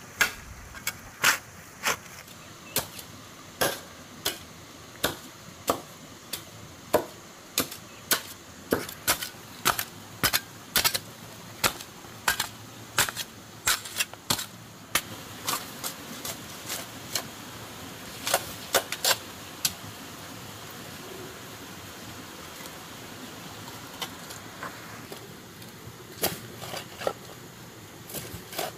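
Stone-masonry work: a run of sharp, hard knocks and clacks of stone and tools, irregularly about one or two a second, with a lull of a few seconds about two-thirds through before they resume.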